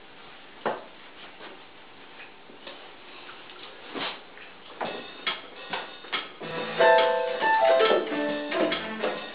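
Electronic keyboard played in a piano voice, with notes starting about two-thirds of the way in and getting louder as both hands play. Before that, a knock under a second in and a few scattered knocks and clicks.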